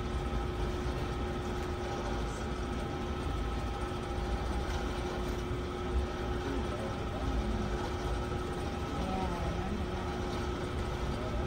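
Steady low rumble with a constant mechanical hum, and faint voices in the background.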